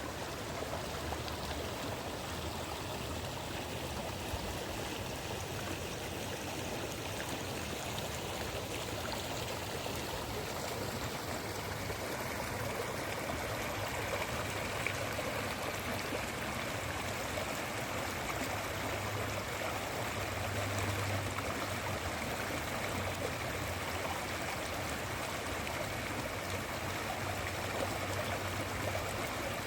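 River water flowing over stones, a steady rushing with some trickling.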